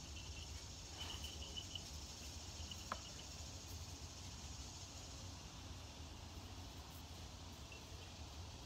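Faint outdoor ambience of insects: a steady high buzz with short runs of rapid chirping, plus a single sharp click about three seconds in.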